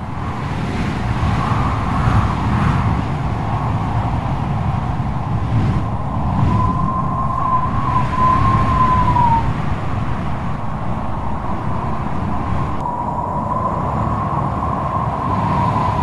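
Strong wind and sea surf, a steady rumbling rush, with a thin high whine that wavers in pitch for a few seconds in the middle and comes back steadily near the end.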